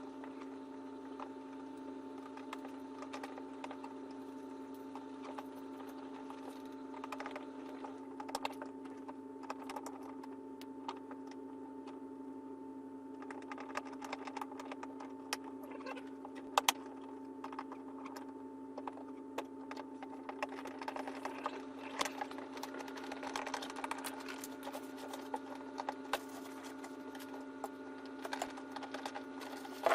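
Irregular light clicks and taps of plastic parts and small screws being handled and fastened during assembly of a kids' ride-on toy, over a steady background hum.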